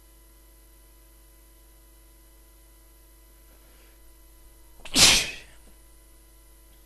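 A man sneezes once, loudly and abruptly, about five seconds in: a deliberately induced sneeze. A faint breathy sound comes a second or so before it.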